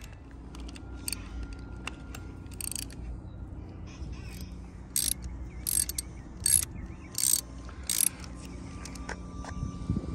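Short bursts of rapid ratcheting clicks, about seven of them, most in the second half, over a faint steady low hum.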